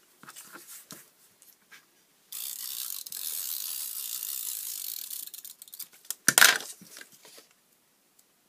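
Adhesive tape runner drawn along a paper strip for about three seconds, a steady ratcheting hiss, after a few soft clicks of paper being handled. A short, loud handling noise comes about six seconds in as the strips are put together.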